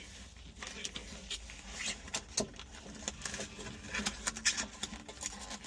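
Scattered light clicks and rustles of a sound-deadening pad being handled and pressed into place, without any rhythm.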